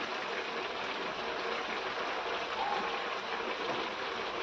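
A steady, even hiss like rushing or bubbling water.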